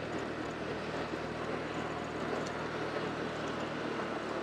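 Steady rushing outdoor noise with a faint low hum underneath and no distinct events.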